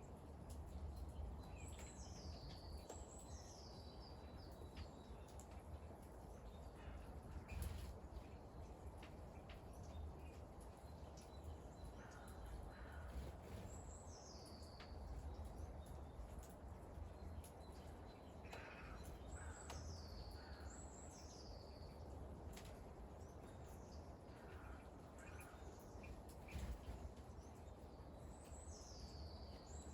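Light rain falling steadily, with scattered drips ticking. A small bird repeatedly gives high, thin, falling calls, mostly two in quick succession.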